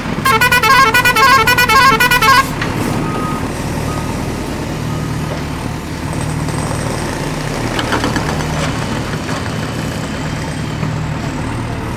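A toy vehicle's electronic horn plays a rapid warbling tune for about two seconds. It is followed by a steady low engine-like hum.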